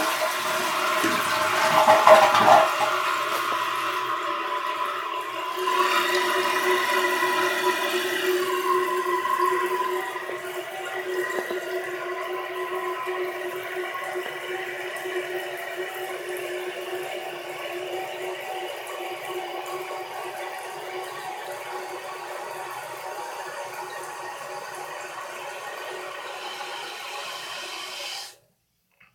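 A toilet flushing: a loud rush of water for the first few seconds, then the tank refilling through a newly fitted ballcock fill valve with a steady hiss and a faint whine. The hiss grows quieter after about ten seconds and stops abruptly near the end.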